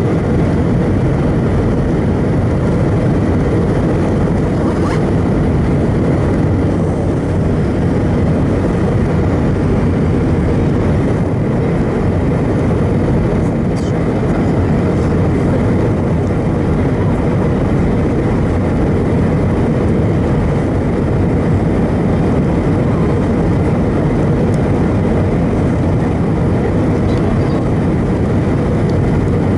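Steady cabin noise of an Airbus A320 descending on approach, engine and airflow noise heard from inside the cabin, heaviest in the low range with a faint steady whine above it.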